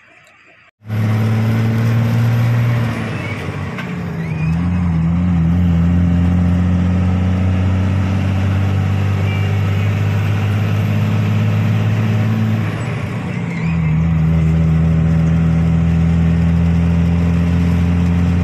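Truck's diesel engine running under way, heard from inside the cab: a loud, steady engine note whose pitch drops and rises again a few seconds in and changes once more about thirteen seconds in.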